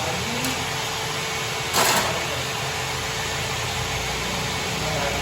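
Metal lathe running steadily with a low motor hum, with one brief louder clatter about two seconds in.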